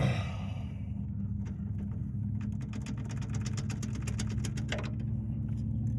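A socket ratchet clicking rapidly for a couple of seconds in the middle, as a bolt is turned, over a steady low mechanical hum.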